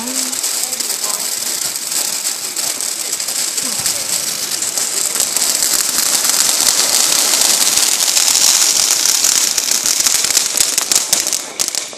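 Consumer firework going off with a continuous dense crackling and hissing that grows louder about two-thirds of the way in, then dies out in a few last pops near the end.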